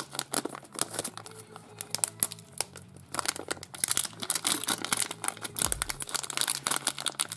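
Hands crinkling and unwrapping a small plastic packet and its paper wrapping: dense, irregular crackles throughout.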